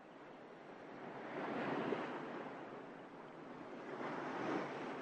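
Surf washing onto a sandy beach, the noise swelling about a second and a half in and again near the end.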